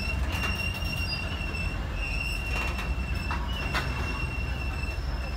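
Train wheels squealing against the rails as railcars roll past: a steady high-pitched squeal over a low rumble, with a few sharp clicks about halfway through.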